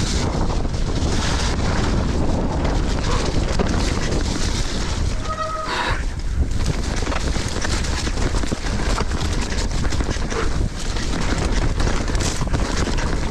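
Wind buffeting the microphone of a mountain bike's onboard camera over the rumble and rattle of the bike descending a rough dirt trail, with frequent small knocks from the bike. A brief squeal sounds about five seconds in.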